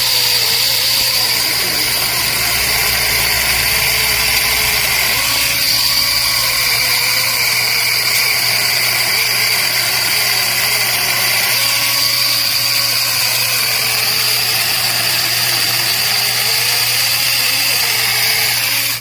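Cordless 21V mini electric chainsaw running continuously with a high motor whine. Its lower tones sag and recover several times. It cuts off at the very end.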